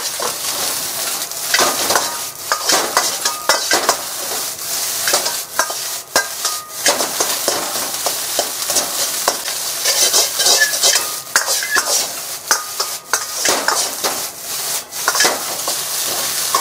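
Fried rice sizzling in an iron wok while a metal ladle stirs and scrapes through it, with frequent sharp clinks of the ladle on the wok and brief metallic rings. This is the final stir-fry after the salted kombu goes in, just before the rice is done.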